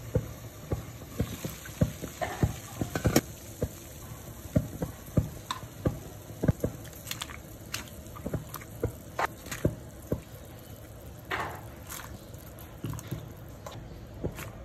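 Pan of water at a boil, bubbling, with sharp irregular pops a few times a second over a steady hiss. Cabbage leaves are being dropped into it.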